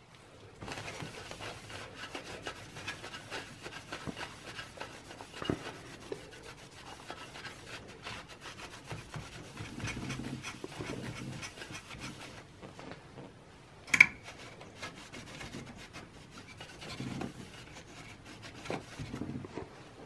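A paper towel wet with rubbing alcohol rubbed back and forth over a CPU's metal lid, wiping off old thermal compound, as a soft steady scratchy rubbing that stops about twelve seconds in. A sharp click follows about two seconds later, then a few soft rustles.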